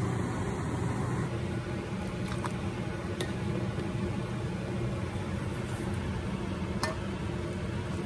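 Steady low mechanical hum, with a few light clicks of a plastic ladle against a glass bowl as cooked quail eggs are transferred into it.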